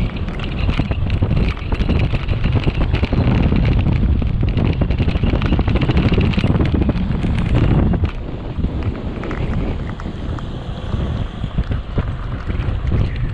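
Wind rushing over the camera microphone on a fast road-bike descent. It is strongest in the middle and eases off about eight seconds in.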